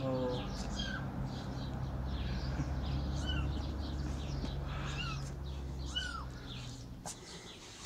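Short, high, chirp-like calls, about five of them a second or so apart, over a low steady hum that fades out near the end.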